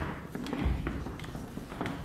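Footsteps of several people walking across a wooden stage floor, with heeled shoes clicking a few times a second and a dull thud about halfway through.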